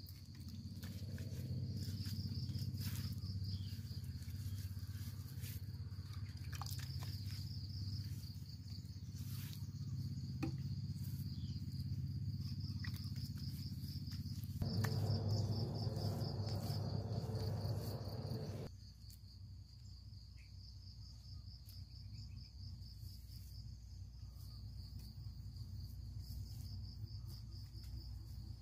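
Insects chirring in a steady, pulsing high drone over a constant low hum, with scattered faint clicks. About halfway through, a louder rushing noise lasts about four seconds.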